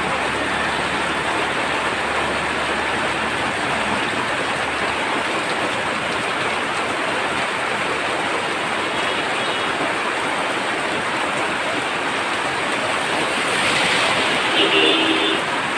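Heavy rain falling, a steady, even hiss that swells slightly near the end, with a brief tone shortly before the end.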